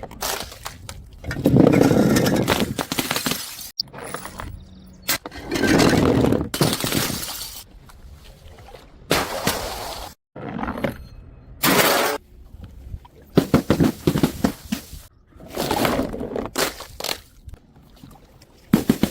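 Glass bottles smashing one after another, each break followed by the crunch and tinkle of falling shards; a run of separate breaks with abrupt cuts between them.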